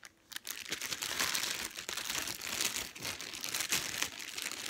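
Clear plastic wrapping crinkling as a rolled rubber bumper lip is handled and unwrapped, starting just after a brief quiet moment.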